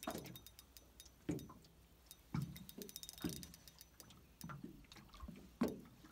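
Small waves lapping and slapping against the side of the boat in irregular knocks about once a second, with a brief patch of faint, fast ticking about three seconds in.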